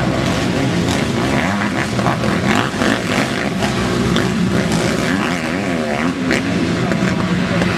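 Several motocross bike engines racing at once, revving hard, their pitches overlapping and rising and falling as the riders accelerate and shift.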